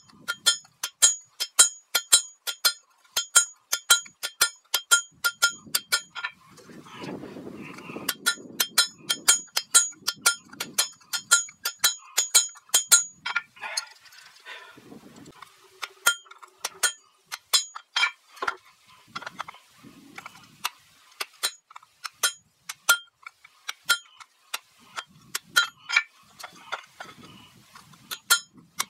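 Blacksmith's hammer striking steel on an anvil in runs of about three to four blows a second, each blow leaving a bright metallic ring, with a few short pauses: the axe head being forged.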